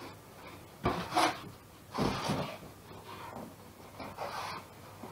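Polystyrene packing being lifted out of a cardboard box, scraping and rubbing against the cardboard in several short bursts about a second apart, some starting with a light knock.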